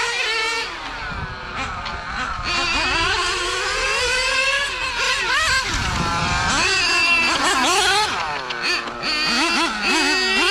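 Two 1/8-scale nitro GT RC cars, a Hot Bodies RGT8 and a Mugen MGT7, racing with their small nitro engines screaming at high revs. The pitches rise and fall and overlap as each car accelerates and lifts off through the corners.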